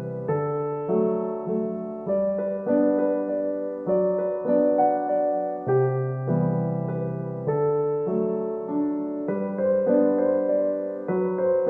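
Background music: a gentle piano melody with chords changing at a steady, unhurried pace.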